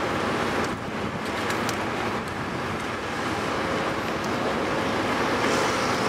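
Steady dockside machinery noise, with a few faint clicks about a second in.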